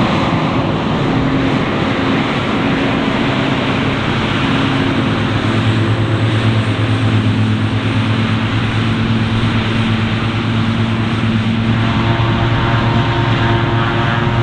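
Heavy diesel farm machinery running steadily under load, its engine note shifting slightly in pitch a few times.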